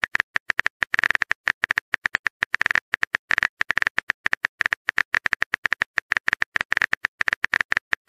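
Rapid, irregular typing clicks, several a second, from a keyboard-typing sound effect as a text message is typed out.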